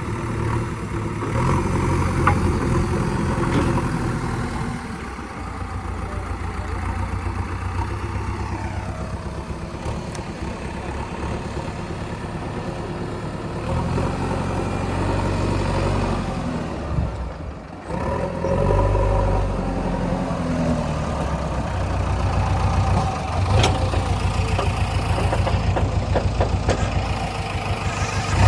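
Heavy diesel engine of earth-moving machinery running throughout, its speed and load rising and falling several times as the machine works.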